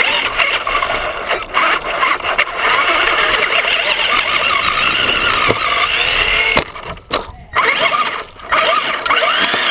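Traxxas RC car's motor and drivetrain heard from a camera mounted on the car, running hard with a whine that rises and falls with the throttle. The sound drops out briefly twice near the end.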